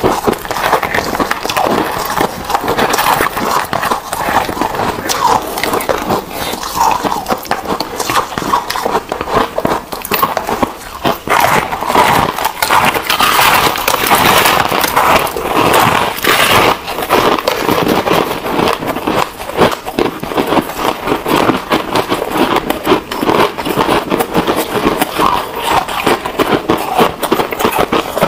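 Close-miked crunching and chewing of ice, two eaters' tracks layered together as a dense, irregular crackle: spoonfuls of crushed shaved ice at first, then bites of foam ice partway through.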